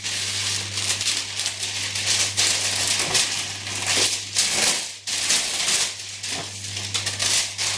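Baking paper rustling and crinkling as a sheet is pulled out of its box and handled, in dense irregular bursts.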